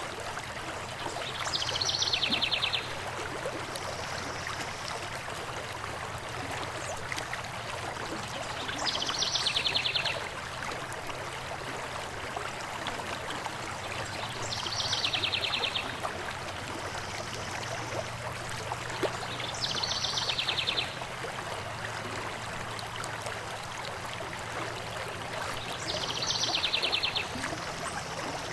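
Steady rush of a stream, with a songbird repeating the same short, rapid high trill five times, about every six seconds.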